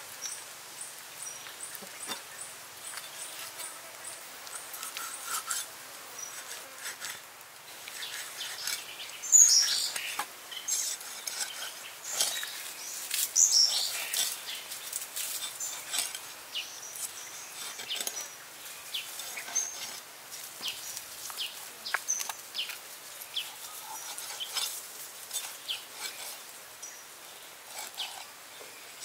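Cleaver cutting and scoring a whole fish on a wooden board, making irregular short chops and scrapes. Birds chirp high in the background.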